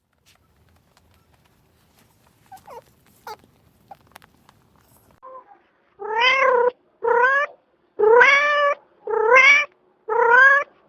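Domestic cat meowing five times, about once a second, each meow drawn out and rising slightly in pitch; before that, about six seconds of only faint clicks and small squeaks.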